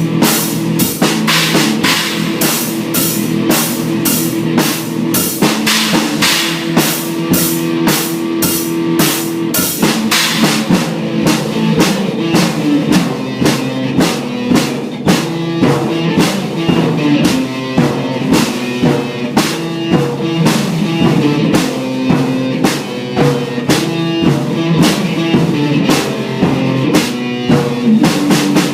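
Electric guitar and drum kit playing an instrumental rock riff. Fast, dense cymbal strokes for the first ten seconds or so, then lighter drumming under the repeating guitar line.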